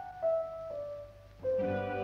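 Background music: a slow run of single notes stepping downward, then a fuller sustained chord swells in near the end.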